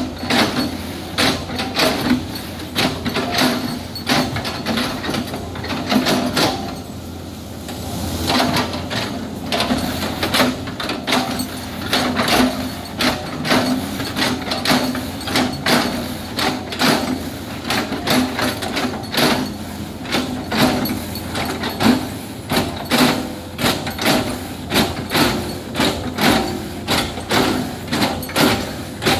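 Hydraulic excavator running steadily while its bucket repeatedly chops a felled oil palm trunk into chips: an engine hum under a rapid, regular series of knocks, with a brief lull about seven seconds in.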